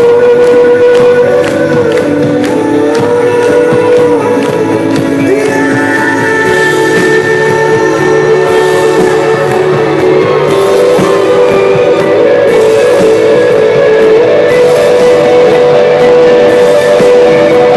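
Live rock band playing: guitars under long held, sliding sung notes, recorded loud from the floor of a large hall.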